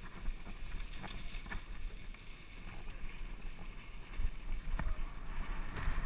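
Mountain bike riding over a dry, leaf-covered dirt trail, heard from a helmet camera: steady wind rumble on the microphone with tyre and trail noise, and a few sharp rattles from bumps, growing louder near the end.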